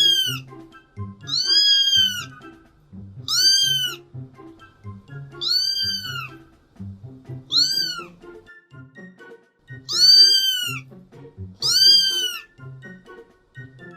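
Domestic cat meowing repeatedly: seven high meows, one every one and a half to two seconds, each rising and then falling in pitch. Background music plays underneath.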